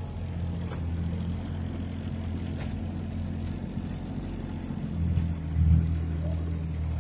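Farm vehicle's engine running steadily while driving, heard from inside its cab, with a low hum and a few light ticks. It grows briefly louder about five to six seconds in.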